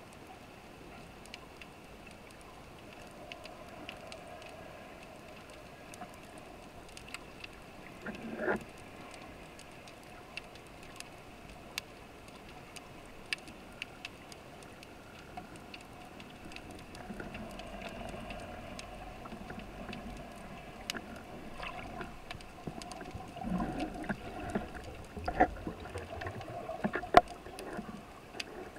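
Underwater ambience heard through a camera housing: a faint steady hum and hiss with scattered sharp clicks, a knock about a third of the way in, and several louder clicks and knocks near the end.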